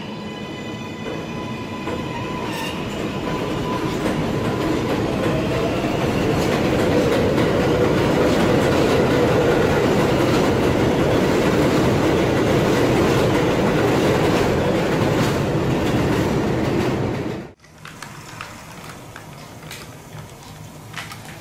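A 7-line subway train of R188 cars pulls out of an elevated station. Its propulsion motors whine, rising in pitch, over wheel and rail noise with clickety-clack that builds loud as the train gathers speed. The sound cuts off abruptly a few seconds before the end, giving way to a model train's faint clicking on its track.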